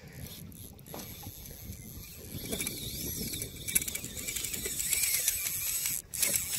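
Large-arbor fly reel spinning as a hooked shark runs off line, its drag clicking rapidly with a wavering whine, growing louder over the second half.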